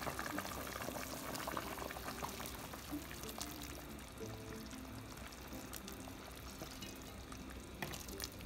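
Blended tomato sauce pouring from a pan into a large pot of beef and vegetable broth, over soft background music.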